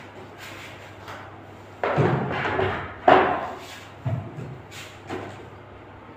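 Plastic vegetable crates being handled and set down on a concrete floor: a run of thuds and knocks, the loudest a little after the middle, with tomatoes shifting in between.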